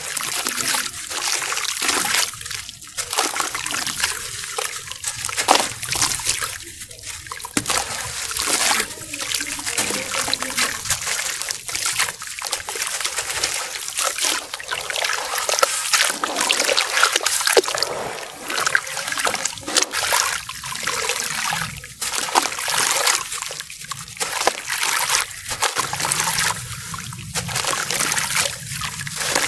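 Wet, crumbly sand-cement chunks broken apart by hand into a basin of muddy water: a gritty crunching and crumbling, full of small clicks, with water trickling and splashing as grains and lumps drop in.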